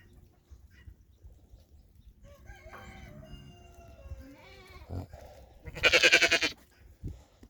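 A rooster crows faintly, then a sheep gives one loud, short, wavering bleat about six seconds in.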